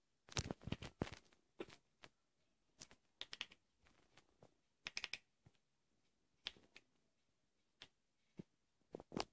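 Scattered small clicks, some in quick clusters, from the button on the Yeelight light strip's inline controller being pressed, switching the LED strip on and off.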